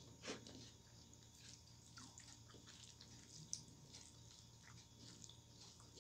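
Faint eating sounds: fingers squishing rice and lentil dal together on a plate, with a few soft clicks.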